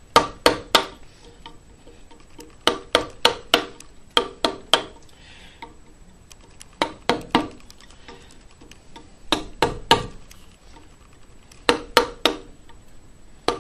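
Mallet tapping a carving chisel into walnut, in short runs of three or four quick knocks with pauses between runs.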